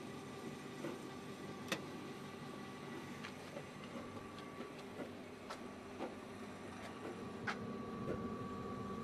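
Hata Iron Works HT-AP15SS-U 15-station rotary tablet press running at its minimum turret speed: a steady mechanical hum with a thin high tone, broken by a few sharp clicks every second or two.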